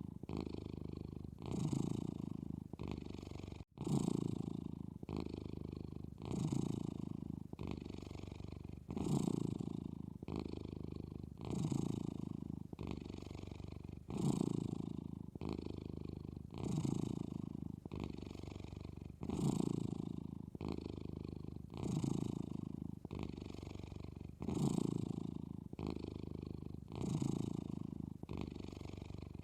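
A sleeping cat snoring in a steady rhythm, about one breath every two and a half seconds, each breath swelling and then fading. The sound drops out for an instant near four seconds in.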